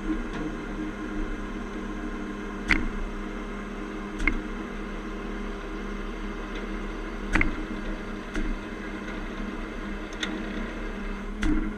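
A diesel engine runs steadily under load while a tow winch's cable and chain pull on a loaded garbage truck. About six sharp metallic clicks and knocks come at irregular intervals as the rigging takes the strain.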